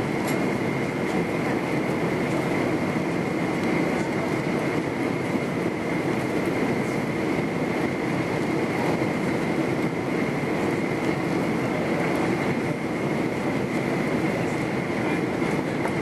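Steady cabin noise inside an Airbus A330-300 on approach: a constant rumble of engines and airflow with a thin, steady whine above it.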